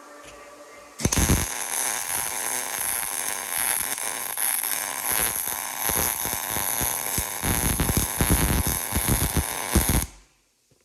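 Millermatic 200 MIG welder laying a weld bead: the arc crackles steadily for about nine seconds, starting abruptly about a second in and cutting off sharply near the end as the trigger is released.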